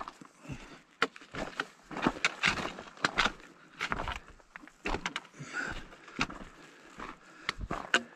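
Hiking boots crunching on a rocky, gravelly mountain trail: irregular walking steps, about two a second.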